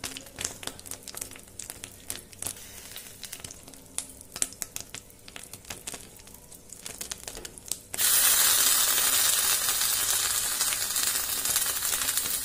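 A spoon scraping and clicking against bread as tomato sauce is spread, over a faint sizzle. About eight seconds in, a loud, steady sizzle of the bread frying in butter in the pan sets in abruptly.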